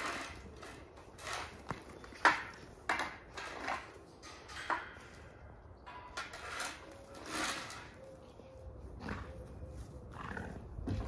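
Irregular knocks and clatter from kennel chores, about ten sharp bangs spread unevenly over the stretch, with scraping and rustling between them.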